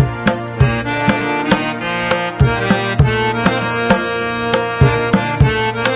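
Background music with a steady drum beat, about two strokes a second, over sustained held chords.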